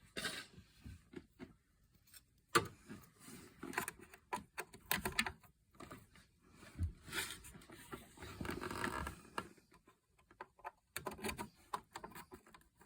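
Irregular clicks, knocks and scraping of hands handling RAM modules and pressing them into the memory slots of a Power Mac G5 Quad, with a louder knock about two and a half seconds in.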